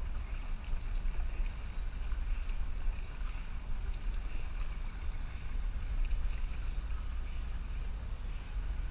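Kayak paddle dipping into calm lake water, with splashing and dripping from the blades, over a steady low rumble of wind on the microphone.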